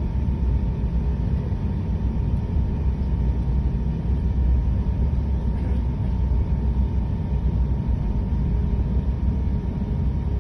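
Cabin noise inside an Airbus A380 taxiing: a steady low rumble from the engines and the rolling aircraft, with a faint steady high hum running through it.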